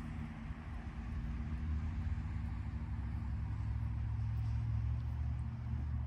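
Steady low rumble with a faint hum in it, growing a little louder from about a second in.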